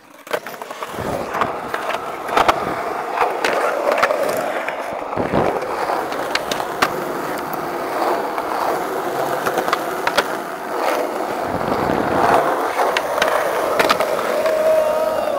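Skateboard wheels rolling on concrete, broken by many sharp clacks of tricks, board pops and landings.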